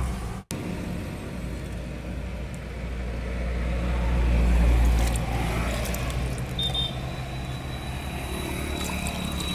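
Street traffic: a low vehicle engine rumble that swells about halfway through and then eases off, as a vehicle passes. The sound cuts out for an instant just after the start, and a thin steady high tone comes in about two-thirds of the way through.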